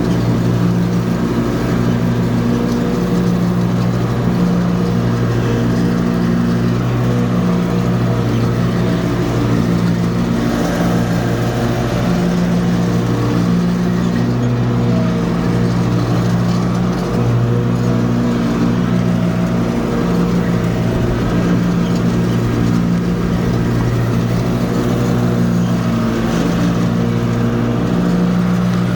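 Ariens Icon-X zero-turn mower's 23 hp Kawasaki V-twin running steadily at high revs with the 52-inch deck's blades engaged, cutting grass.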